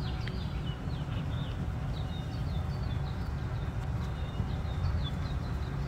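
Short high chirps from small animals calling, repeating irregularly over a low steady rumble.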